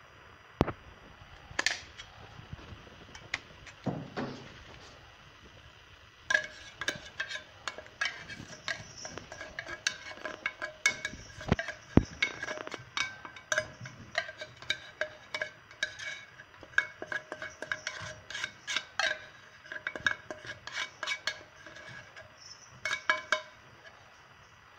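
Metal spoon clinking and scraping against glass dishes as tuna is scooped into a glass bowl of flour. A few scattered knocks at first, then from about six seconds in many quick taps, each leaving a short ringing note from the glass.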